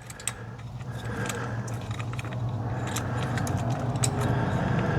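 Light metallic clicks and rattles as a steering-wheel hub adapter and its wiring are handled and fed into the steering column, over a steady low hum that grows gradually louder.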